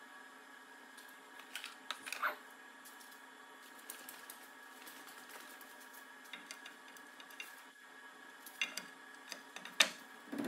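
Light clicks and knocks of a ground-adjustable Catto propeller blade being handled and seated back into its hub, in clusters about two seconds in and again near the end, the sharpest click just before the end, over a steady faint hum.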